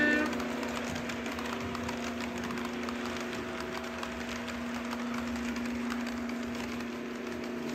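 Model railway locomotive running along the track, with a steady motor or sound-decoder hum and irregular light clicking of wheels over the rails. A sounded horn cuts off right at the start.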